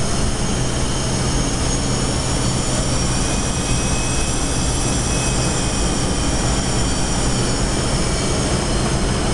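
Steady flight-deck noise inside a KC-135 tanker's cockpit in flight: a constant rush of air with a low hum and several thin, steady high whines.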